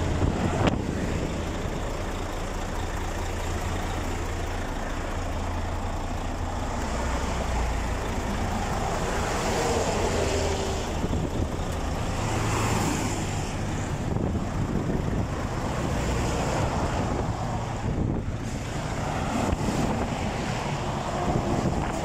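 Fast highway traffic going past, trucks and cars rushing by one after another in swelling waves of road noise, with wind on the microphone.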